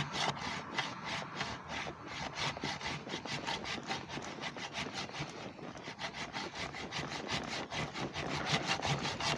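Hand-pulled pruning saw blade from a pole saw head cutting through a wooden log, in quick, even back-and-forth rasping strokes, several a second.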